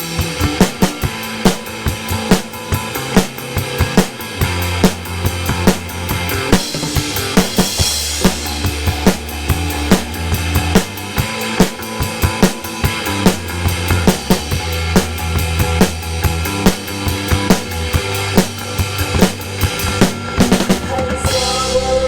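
Drum kit played along to a pop song's backing track: a steady, busy beat of kick, snare and hi-hat over bass and keys, with a short break and a cymbal crash near the end.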